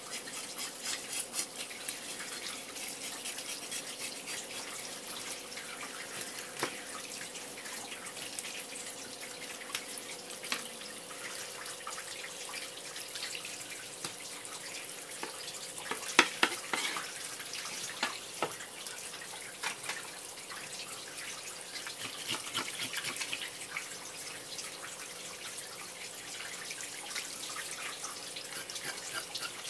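A thin stream of tap water splashing onto a horse mackerel and a wooden cutting board, while a knife scrapes the scales off the fish with light scratching and ticking. A few sharper knocks come through, the loudest about halfway through.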